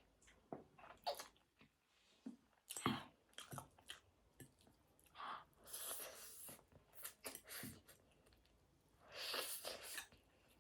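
Close-miked eating of spicy ramen with fried egg and chicken sausage: chewing with irregular wet mouth clicks, and two longer hissing stretches, about six and nine seconds in.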